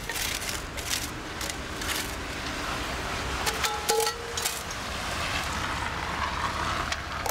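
Scattered clicks and clinks of metal tongs moving charcoal briquettes in a foil tray and a cast iron Dutch oven being set down on them, with a short metallic ring about four seconds in. A steady low rumble, like distant traffic, runs underneath.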